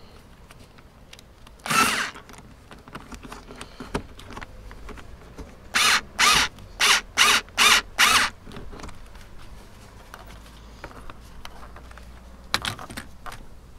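Cordless screwdriver running in short bursts on a bolt in a car's engine bay: once about two seconds in, six quick pulses one after another from about six to eight seconds, and once more near the end.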